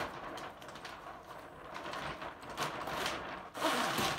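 Reefing zipper on a 24-square-foot Balogh BatWing kayak sail being drawn closed by hand: a rasping run of zipper teeth with the sail cloth rustling, loudest in a stretch near the end.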